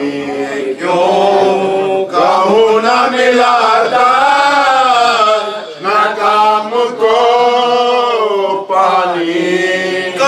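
A solo male voice chanting an Urdu mourning lament in slow, drawn-out phrases with long, wavering held notes. The phrases are broken by short breaths about two, six and nine seconds in.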